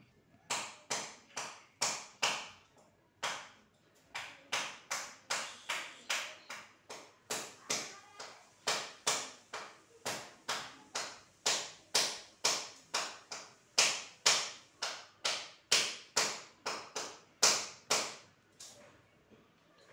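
A long run of sharp taps, roughly two a second but unevenly spaced, each with a short fading tail, some much louder than others.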